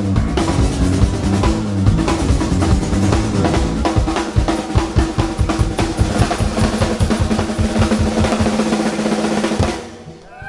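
Live rock band with the drum kit to the fore: a fast run of drum strokes building over a steady held note. The band cuts out suddenly near the end, leaving a brief gap.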